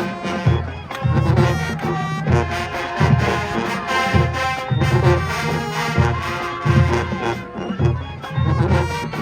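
Brass band music: horns playing a tune over a heavy bass line that hits about once a second.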